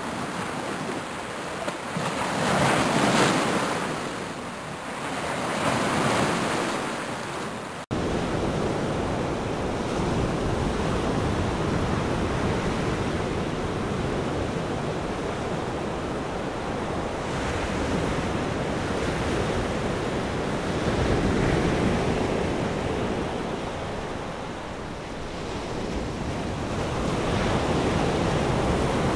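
Ocean surf: waves washing in, swelling and fading every few seconds. About eight seconds in, the sound changes abruptly to a fuller, deeper wash.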